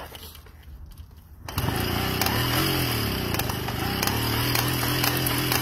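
1969 Komar 232 moped being pedalled on its stand to turn its two-stroke engine over, without it catching: a loud mechanical whirring with a wavering hum sets in abruptly about one and a half seconds in. The engine will not fire because the plug is wet and gives no spark.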